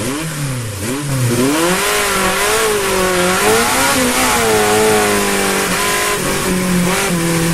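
A car engine revving, its pitch rising and falling repeatedly.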